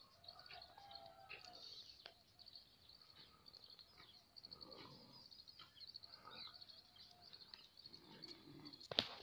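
Near silence: faint outdoor ambience with a steady high chirping, and a sharp click near the end.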